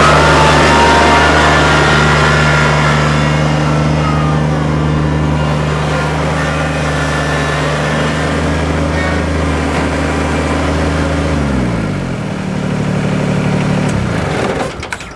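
Kubota tractor's diesel engine running steadily under working revs. About twelve seconds in, the revs drop and the engine note slides down to a lower speed.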